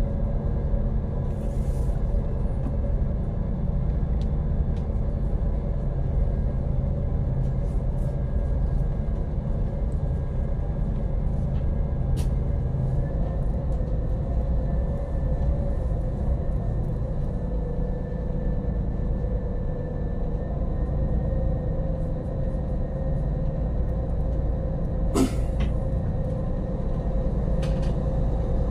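Boat engine running steadily: a low rumble with a constant hum above it, and a brief knock near the end.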